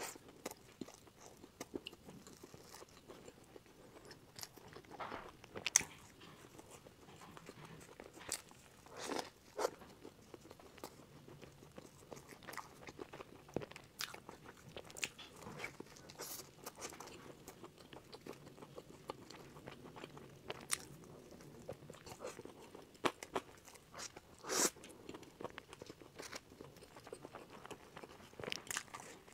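Close-miked biting and chewing of a mammoth bread, a large bun with a crumbly sugared crust and a creamy filling. Soft crunches and crackles come every second or two, with louder bites about six, nine, twenty-three and twenty-five seconds in.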